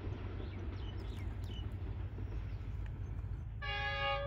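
Low steady rumble of an approaching train, then near the end a diesel locomotive's air horn starts to blow, a loud chord of several tones. A few faint bird chirps come about a second in.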